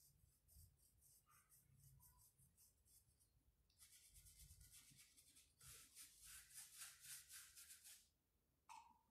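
Faint scratchy rubbing of a paintbrush's bristles working in quick short strokes over the rough wood of a cable spool, busiest from about four to eight seconds in.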